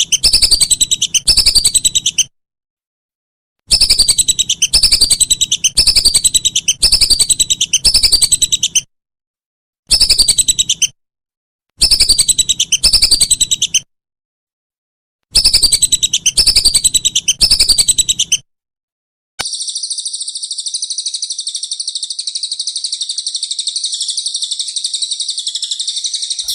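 Recorded songbird song played as a masteran tutor track. It starts with short repeated down-slurred whistled phrases in bouts of one to five seconds, broken by sudden silences. For the last seven seconds a continuous high, buzzy trill takes over.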